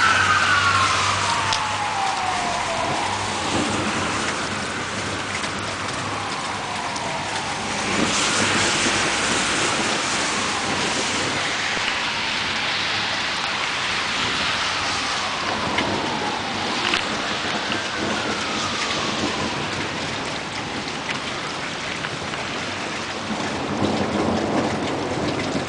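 Steady rain falling through a night thunderstorm, with a distant emergency-vehicle siren wailing up and down, loudest at the start and then fainter. Low rolls of thunder come about eight seconds in and again near the end.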